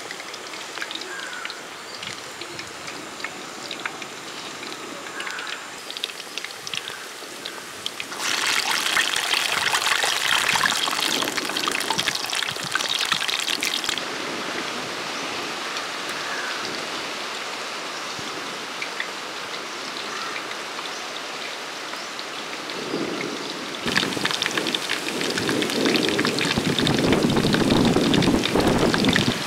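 Prawn vadas deep-frying in a wide aluminium kadai of hot oil: a steady sizzle with fine crackling. It swells louder for several seconds about eight seconds in, and again over the last few seconds.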